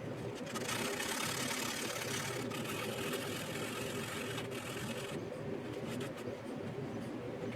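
Sandpaper rubbing over puttied plastic on a scale model kit, a hiss that runs from about half a second in to about five seconds, over a steady low hum.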